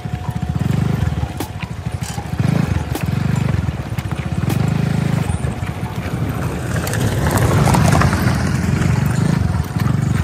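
An engine running with a low throb that swells and fades every second or two, growing louder and noisier around eight seconds in.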